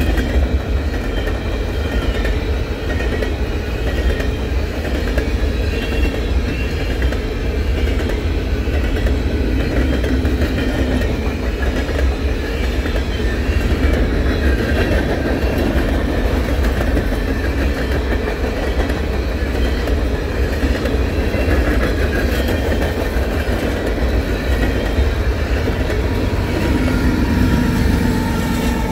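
Canadian Pacific grain train's covered hopper cars rolling past, a steady loud rumble and clatter of steel wheels on the rails.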